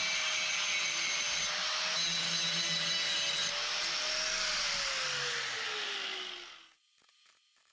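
Electric grinder working metal, running steadily with a whine, then switched off so that its whine falls as the motor spins down, stopping about seven seconds in.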